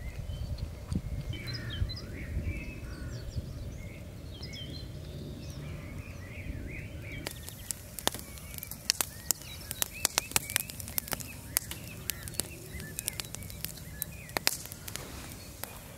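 Birds chirping and calling. About seven seconds in, the sharp crackles and pops of a wood fire start and go on alongside the birds, over a low steady rumble.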